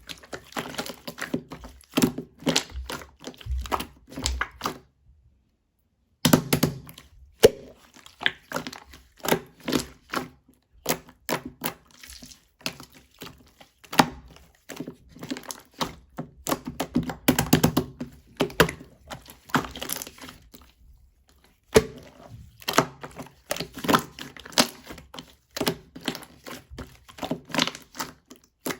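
Quick, irregular taps, knocks and clicks of small hard objects being handled, several a second, stopping briefly twice.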